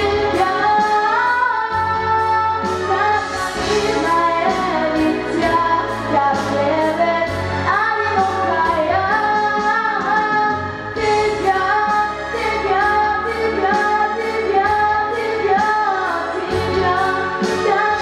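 A girl singing a melody into a handheld microphone over a backing track with a steady beat.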